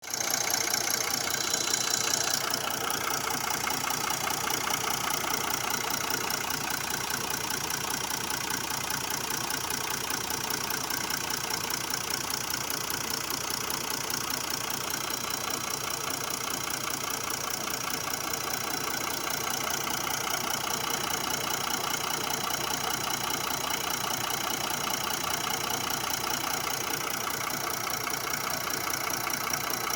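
Mercedes C-Class 3.0-litre diesel engine idling steadily with a knocking sound. The owner cannot tell its cause.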